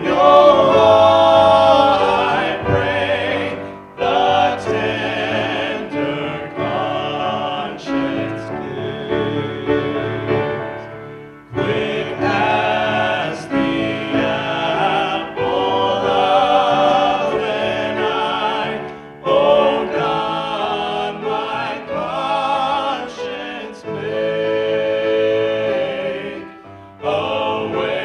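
Vocal group singing a hymn in harmony, in phrases of a few seconds with brief breaths between them.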